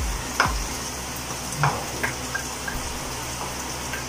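Chopped meatloaf sizzling steadily in a non-stick frying pan as all-purpose cream is poured in, with a few scrapes of a wooden spatula in the first two seconds.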